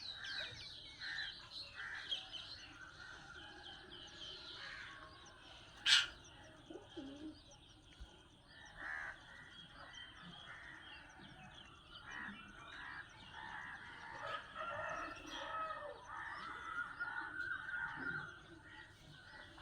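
A flock of birds calling and chirping over each other, with many short overlapping calls, and one sharp click about six seconds in.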